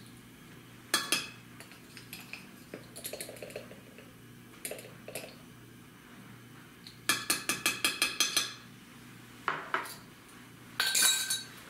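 Metal measuring spoons clinking against a saucepan as cornstarch is spooned in, with a quick run of about eight taps a little past halfway and scattered single clinks.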